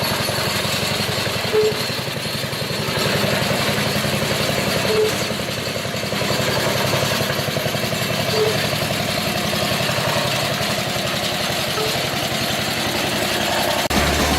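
Ruggerini diesel engine of the restored tractor running steadily at idle, with a short higher-pitched tone recurring about every three and a half seconds. Music comes in near the end.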